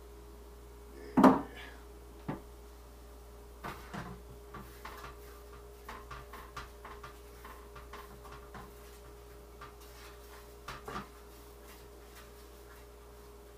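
A kitchen wall-cupboard door closes with a loud knock about a second in. Light, scattered taps and clatters follow as things are handled on the counter.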